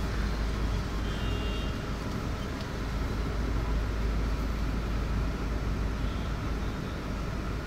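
Steady road and traffic noise from a car driving through city streets, with a strong low rumble underneath.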